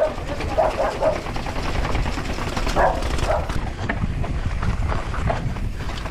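A dog barking a few times at a passing mountain biker, over a steady low rumble of wind on the camera's microphone.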